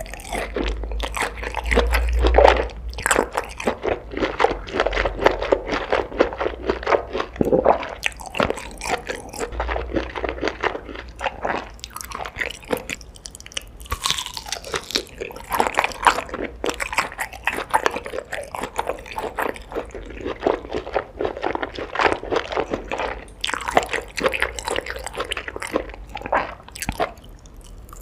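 Close-miked eating: a steady stream of crunching bites and chewing.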